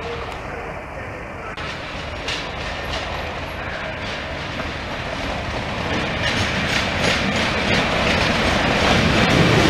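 Class 37 diesel locomotive, English Electric V12-engined, approaching slowly over pointwork with a train of coaches. Its engine and the wheels clicking over the rail joints grow steadily louder as it draws near.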